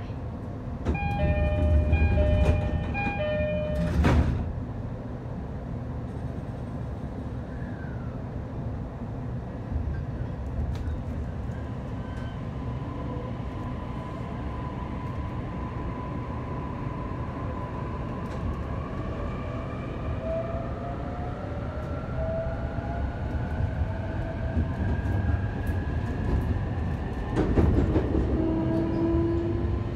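JR East E531-series electric train heard from inside the passenger car as it leaves a station. A two-note door chime sounds several times, the doors shut with a thud about four seconds in, and then the traction inverter's whine rises slowly in pitch over the rumble of the cars as the train gathers speed. There is another knock near the end.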